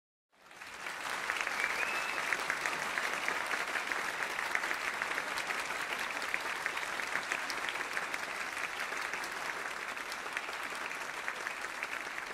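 Audience applauding, a dense steady clatter of many hands clapping that fades in about half a second in.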